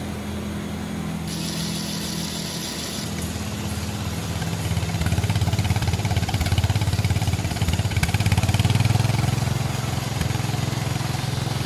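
A motor running with a steady low throb, getting louder about five seconds in and easing a little near the end.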